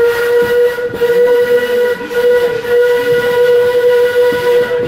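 Steam locomotive's whistle blowing one long, steady blast that cuts off near the end.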